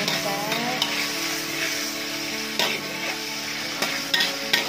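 Diced chicken, fish balls, shallots and garlic sizzling in hot oil in a wok, stir-fried with a spatula that scrapes and knocks against the wok several times: the sautéing (tumis) stage of fried rice vermicelli.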